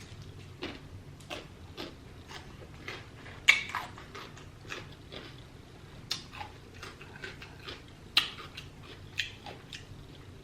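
A person chewing and smacking while eating seafood, close to the microphone: irregular wet clicks a few times a second, with two louder smacks.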